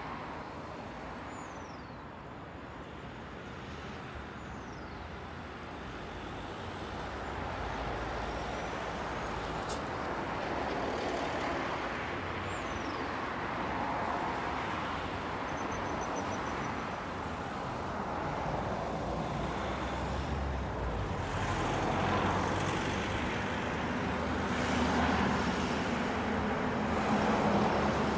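Road traffic noise, a steady rush that grows gradually louder.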